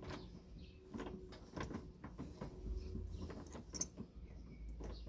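Small clicks and light metallic rattles of a key and a newly fitted euro cylinder lock being worked in a uPVC door, with one sharper click near the end.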